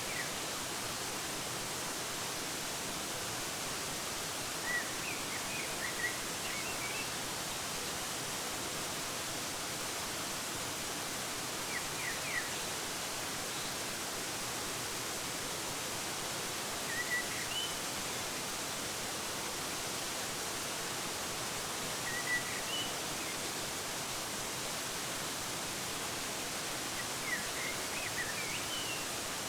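A waterfall rushing in a steady, even hiss, with a small bird giving short high chirps in brief bursts about every five seconds.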